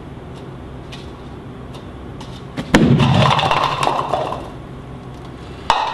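A stack of polystyrene cups knocked over with a sudden thump about three seconds in, the cups then clattering and tumbling on the table for over a second before it fades; another sharp knock near the end. Before the collapse only a steady low room hum.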